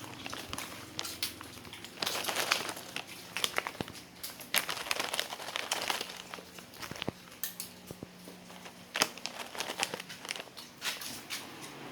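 Plastic snack packet crinkling as it is handled, in irregular bursts of crackles.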